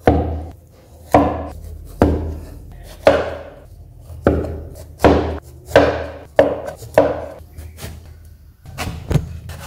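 Cleaver slicing the skin off a breadfruit and knocking down onto a wooden chopping board, about nine sharp chops at roughly one a second, with two lighter ones near the end.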